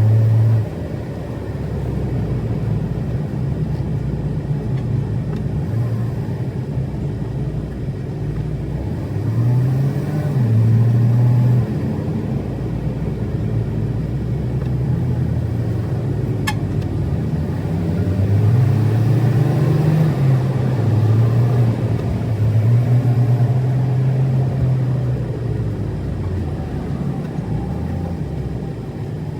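Car engine running under way, its low note rising and falling as the car speeds up and slows down, with a rumble of road noise. A single sharp click comes about halfway through.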